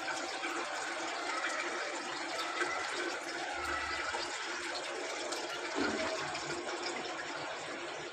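Water running steadily in a Samsung washing machine, a continuous rushing and splashing.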